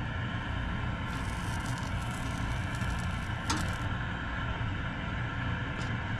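Seasoned chicken sizzling as it is laid on a hot gas grill's grate with metal tongs, over a steady low rumble, with one sharp click of the tongs on the grate about three and a half seconds in.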